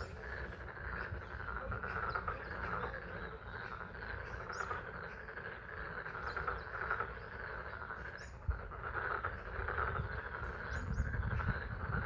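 A pond full of frogs calling together in a steady chorus, over the patter of spring rain, with a few short high chirps now and then.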